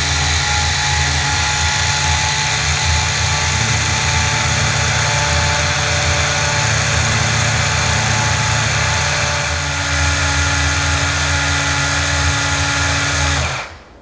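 Small battery-powered electric milk frother (GRICAFE frother with coffee grinder) running, its motor spinning the double-layer whisk in half and half with a steady whir. The motor cuts off suddenly near the end.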